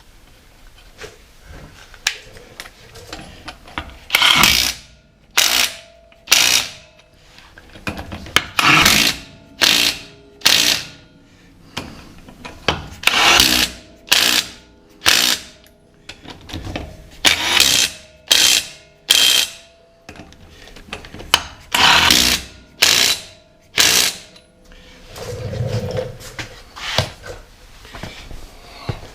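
Impact wrench running the wheel's lug nuts on, in short bursts: five groups of about three bursts each, one group per lug nut.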